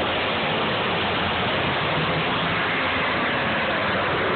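Several demolition derby cars' engines running together, a steady, dense wash of engine noise with no single crash standing out.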